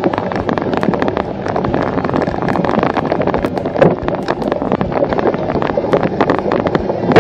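Cyclocross bike ridden fast over dirt and dry leaf litter: a dense, steady crackle and rattle of tyres and bike, with wind buffeting the microphone.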